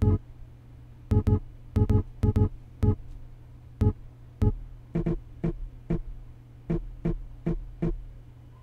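Short pitched sample slices played one at a time from the pads of a Synthstrom Deluge, about eighteen brief notes in an uneven rhythm, several in quick pairs. A steady low hum runs underneath.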